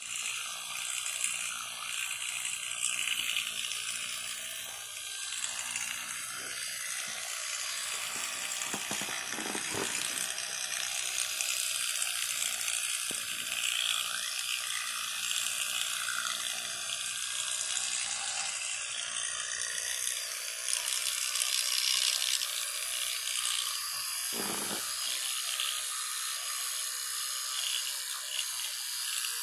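Electric toothbrush buzzing steadily while held against a cat's teeth.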